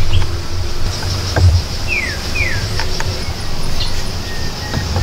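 Woodland ambience: a steady high insect drone, two short falling bird whistles about two seconds in, and scattered light knocks of wooden sticks being handled, over an uneven low rumble.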